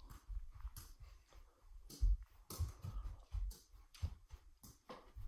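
Soft, irregular thuds and taps of a soccer ball dribbled quickly with bare feet on carpet, with footfalls; the firmest thud comes about two seconds in.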